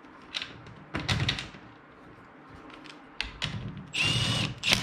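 A few clicks and knocks of seat bolts and parts being handled. About four seconds in, a power drill runs briefly with a steady high whine, driving in a seat bolt, and a sharp clack follows near the end.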